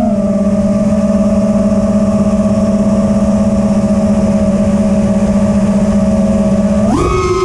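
FPV quadcopter's four brushless motors and 5-inch three-blade propellers humming at one steady pitch under even throttle. Near the end the motors spin up sharply and the pitch jumps higher.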